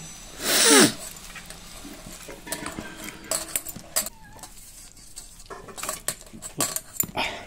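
A bare hand mixing and squeezing sliced onions, tomato and green chilli in a steel bowl: soft squishing with scattered light clinks against the metal. About half a second in, a brief loud sound falls in pitch.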